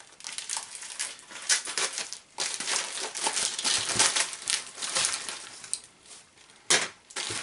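Paper wrapping being crinkled, rustled and torn open by hand to get at the parts inside, in irregular crackling bursts with a louder crackle near the end.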